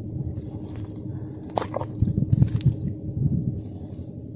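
Wet, squelching mud underfoot and under hand as a person shifts and steps through soft tidal mud, with a few sharp clicks about one and a half seconds in.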